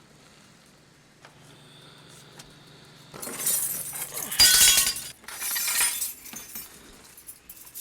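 Faint low hum, then about three seconds in a series of three loud, crashing, breaking sounds; the middle one has a sharp loud impact.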